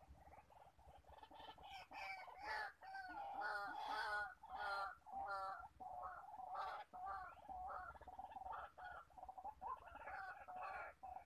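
White-breasted waterhen calling: a long run of repeated notes, about two a second, growing louder over the first few seconds and then carrying on steadily.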